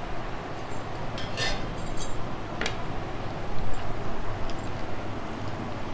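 A metal spoon clinking against steel bowls and plates: about half a dozen light, separate clinks spread over several seconds, over a low steady background hum.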